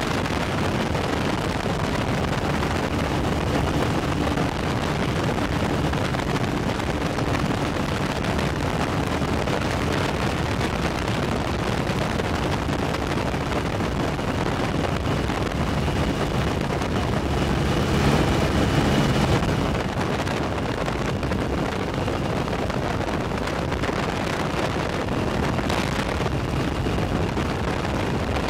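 Steady drone of a piston aircraft engine in flight, largely buried under heavy wind buffeting on the microphone, with a brief swell in loudness about two-thirds of the way through.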